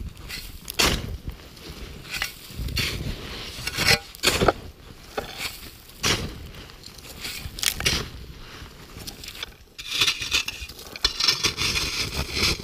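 Shovel digging into packed snow: irregular scrapes and crunches, about one stroke a second, as snow is hollowed out of a quinzee shelter. Near the end a longer hissing spell as loose snow spills out.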